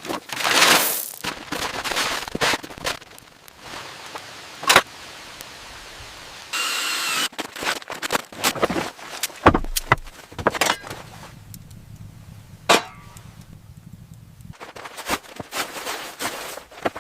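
Irregular sharp knocks and clanging impacts of hand-tool building work, struck at uneven intervals with some much louder blows.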